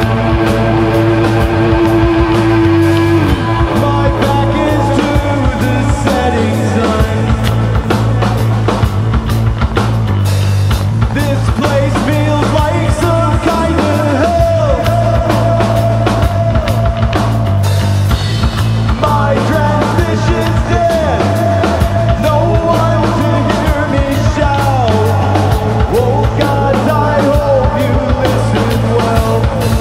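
A heavy rock band plays loudly: electric guitar, bass guitar and drum kit, with a sustained low bass line under a guitar melody that bends and slides.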